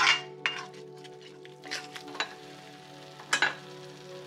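A spatula scraping and stirring onions, tomatoes and spices in a metal wok as they sizzle. There are a few separate scraping strokes, the loudest right at the start and another about three seconds in.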